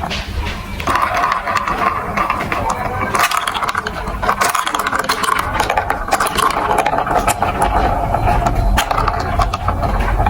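Marbles rolling and clattering down a plastic building-block marble run: a continuous rolling rattle with many sharp clicks as they knock against the track pieces.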